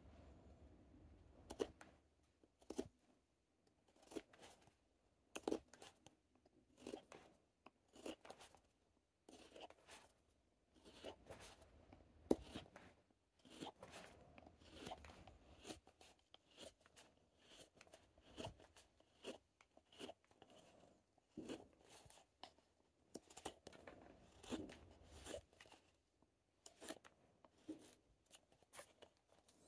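Quiet, irregular knife cuts slicing shavings off a wooden goblet stem, each a brief crisp snick, about one or two a second.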